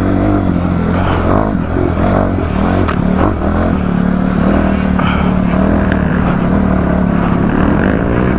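Dirt bike engine running under way on a trail, its pitch rising and falling with the throttle, holding fairly steady through the middle and climbing again near the end.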